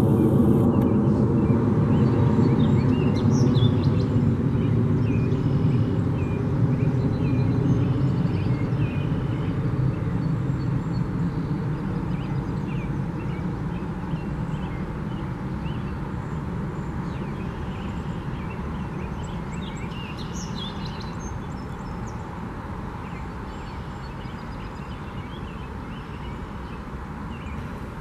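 Low engine rumble that slowly fades away, with faint, scattered bird chirps over it.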